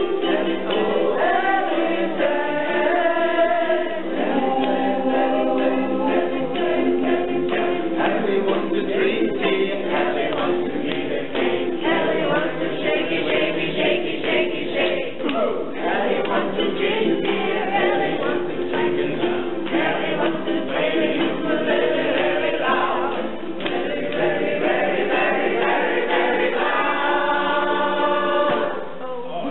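A small group sings together, with ukuleles strummed to a steady beat.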